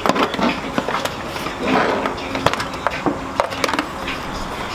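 Irregular light metallic clicks and knocks of hand tools and fasteners while an engine is worked onto its transmission studs, several scattered taps a second with no steady rhythm.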